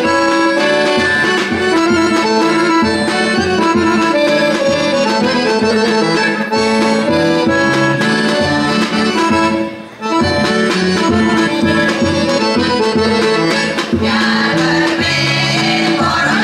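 Accordion playing a lively Bulgarian folk tune, with a drum keeping a steady beat under it. The music drops out briefly about ten seconds in, then carries on.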